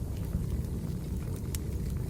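Wood fire burning: a steady low rumble of flames with a few sharp crackling pops from the firewood, the clearest about one and a half seconds in.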